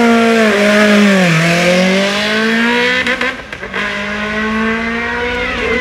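Race car engine revving hard and pulling away. Its pitch drops at a gear change about a second and a half in, then climbs again, and it briefly dips a little after three seconds.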